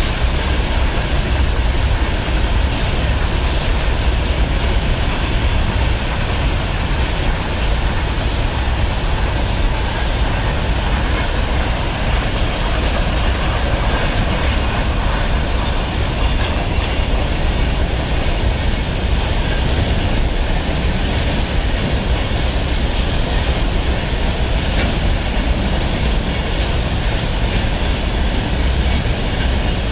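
Goods train of covered wagons rolling past: a loud, steady rumble of wagon wheels running on the rails.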